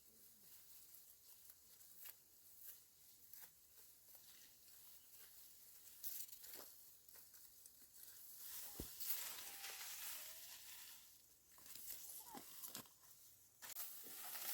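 Faint rustling and crackling of dry plant material, with scattered soft snaps and clicks; the rustle is busiest past the middle.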